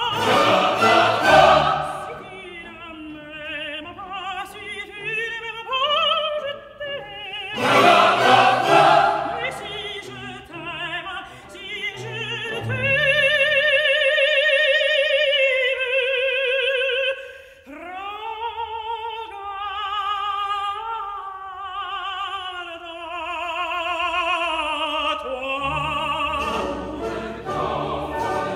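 Operatic singing: long held notes with a strong vibrato over musical accompaniment, loudest near the start and around eight seconds in.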